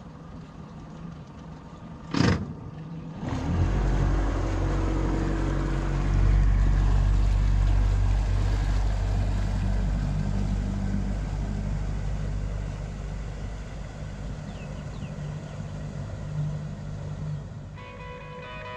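Boat outboard motor idling, a brief loud thump about two seconds in, then the outboard throttles up about three seconds in as the boat pulls away, its steady engine sound slowly fading as it goes. Music starts at the very end.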